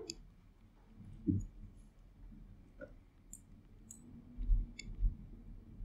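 Plastic Lego bricks clicking faintly as they are handled and pressed together, with a few soft thumps.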